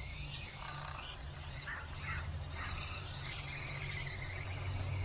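Outdoor background noise: a steady low rumble with scattered faint short chirps.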